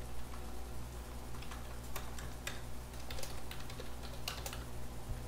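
Computer keyboard typing: irregular, scattered key clicks as a word is typed, over a steady low electrical hum.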